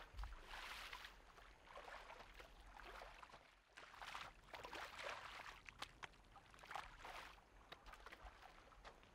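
Faint wet squelches and splashes of hoes chopping into flooded rice-paddy mud, one stroke roughly every second, with small clicks between.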